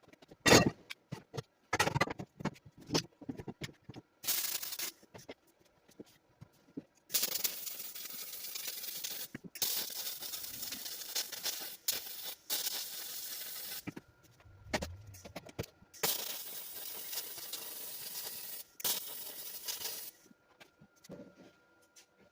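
Arc welding a steel square-tube brace in place: several runs of crackling hiss, each one to four seconds long with short gaps between them, after a few short knocks in the first seconds.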